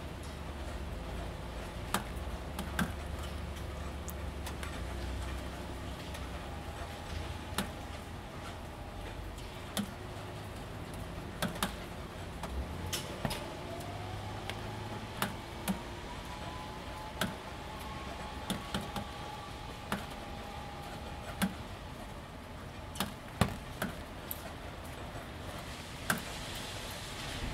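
Light rain with single drops striking corrugated roof panels, irregular sharp ticks every second or two over a soft steady patter. A low rumble runs under it for the first few seconds.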